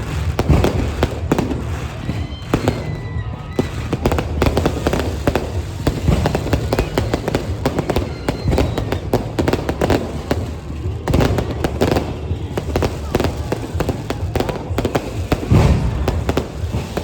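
Fireworks bursting in rapid, irregular succession: a dense string of sharp cracks and booms that never lets up.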